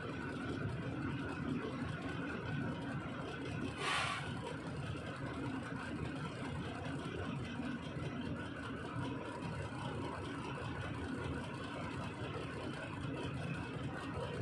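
A diesel engine running steadily at idle, with a short hiss about four seconds in.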